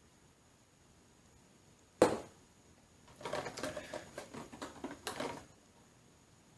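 Plastic toy packaging being handled: one sharp plastic click about two seconds in, then a couple of seconds of irregular crinkling and clicking as small accessories are worked out of their plastic tray.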